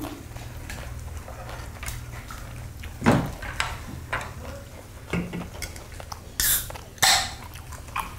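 Eating sounds at a restaurant table: chopsticks clicking and knocking against a stainless steel bowl and dishes. There is a louder knock about three seconds in and two short, loud noisy bursts a little over six and seven seconds in, over a low steady hum.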